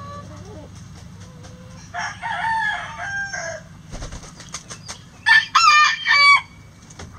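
Roosters crowing: one crow about two seconds in, then a louder crow in broken phrases about five seconds in, with a few sharp clicks between them.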